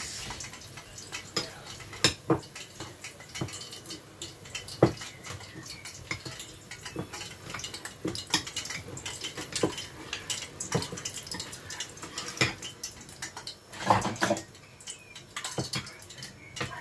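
Sugar syrup boiling in a stainless steel pot, with irregular sharp clicks and knocks of metal against the pot, the loudest about two, five and fourteen seconds in.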